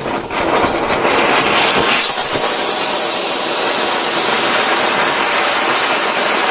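Anar fountain fireworks burning, a loud, steady hissing rush of sparks that swells to full strength within the first second.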